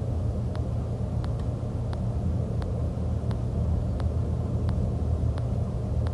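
Daewoo BH120F coach's diesel engine and road noise heard from inside the driver's cab while cruising: a steady low drone, with a light click repeating about every two-thirds of a second.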